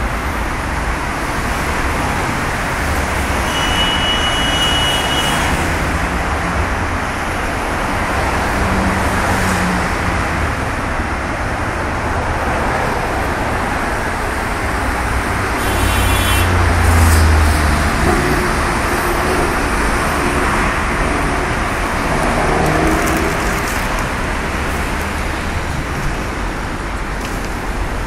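Steady noise of dense multi-lane road traffic, many cars passing continuously. A brief high-pitched tone sounds about four seconds in, and a louder low rumble swells about halfway through.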